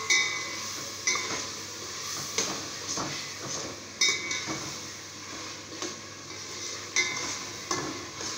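Metal spoon stirring chicken and vegetables frying in oil in a stainless steel pot: the spoon scrapes and clinks against the pot's sides about once a second, each clink ringing briefly, over a steady sizzle.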